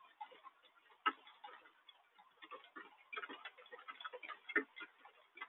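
Rain heard as irregular, separate drop taps close to the microphone, several a second, some louder than others, with no steady hiss of downpour.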